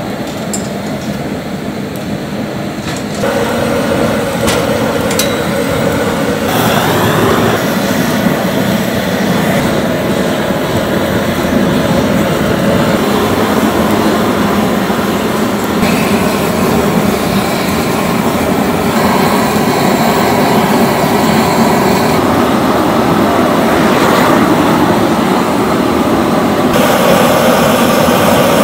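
Steady rushing noise of a busy restaurant kitchen at work. Its tone shifts abruptly several times.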